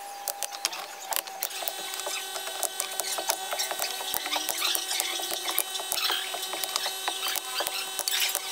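Mechanical clicking and rattling, irregular and rapid, over a faint steady whine.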